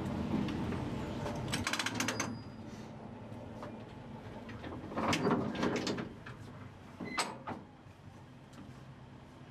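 Vintage tram's running rumble dying away about two seconds in as it comes to a stop, followed by a quick rattling clatter, a louder burst of knocks a few seconds later and a single sharp click.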